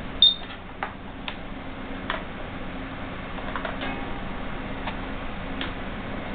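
Scattered light clicks and taps of banana-plug test leads and the metal marking fixture being handled, the sharpest about a quarter second in, over a steady low hum.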